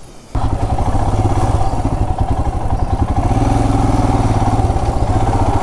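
Royal Enfield Himalayan's single-cylinder engine running as the bike is ridden, a steady stream of rapid, even firing pulses. It comes in suddenly just after the start.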